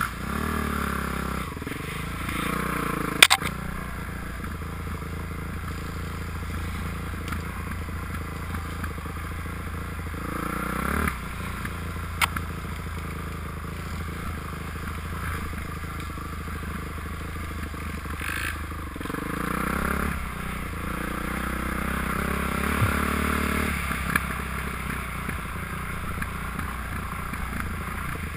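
Dirt bike engine running on a trail ride, revving up and easing off several times as the throttle opens and closes. A couple of sharp knocks stand out, one a few seconds in and one about twelve seconds in.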